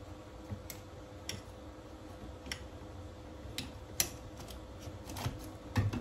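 Scattered light clicks and snips, about seven in a few seconds, from wallpaper being cut and pressed in by hand around a sink's supply and drain pipes, with a faint steady hum underneath.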